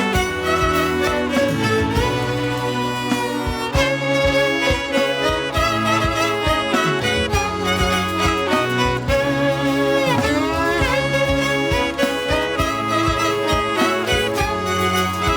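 Worship band playing an instrumental passage, a violin carrying the melody over a steady drum beat, with a sliding note about two-thirds of the way through.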